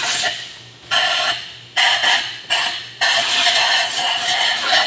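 Compressed-air blow gun blasting in about five on-off bursts, the last held for nearly two seconds, blowing dirt out of the engine and the spark plug wells before the plugs are removed.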